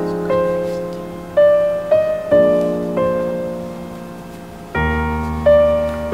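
Background music: a gentle solo piano piece, single notes and chords struck one after another and left to ring, with a deeper chord entering about five seconds in.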